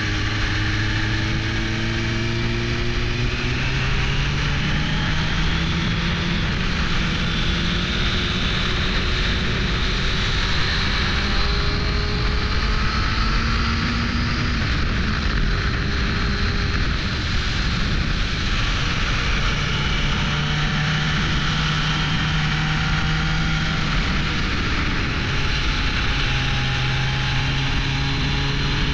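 1998 Suzuki GSX-R 600 SRAD's inline-four engine running under way, its note rising slowly and later settling to steadier pitches as the speed changes, over a steady rush of wind and road noise.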